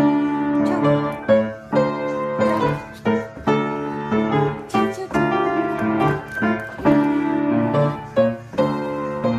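A piano being played with both hands: a tune of single notes over held chords, with a steady rhythm.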